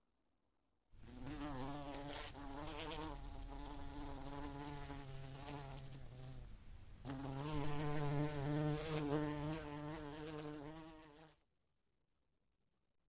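A flying insect buzzing close to the microphone, its hum wavering in pitch. It starts abruptly, dips briefly about halfway, grows louder again and cuts off suddenly near the end.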